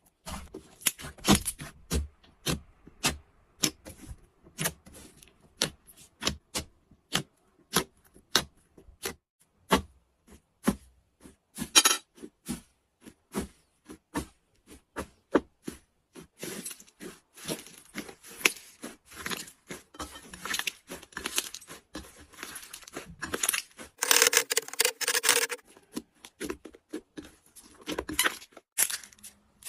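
Slime being played with: a string of sharp, irregular pops and clicks, packed closer together in the middle, with one longer, louder crackling squelch about four-fifths of the way in.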